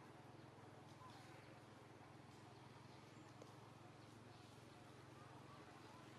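Near silence: faint outdoor background noise with a low steady hum.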